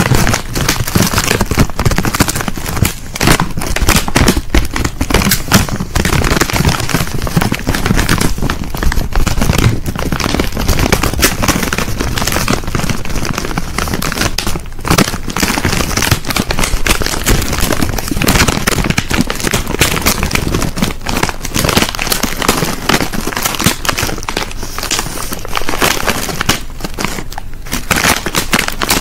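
Plastic crisp packet being crinkled and rustled by hand, a loud, dense, unbroken crackling.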